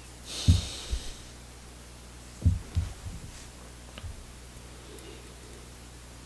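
A quick breath in, then scattered soft low thumps over a faint steady hum: two in the first second, a small cluster about two and a half seconds in, and one more near four seconds.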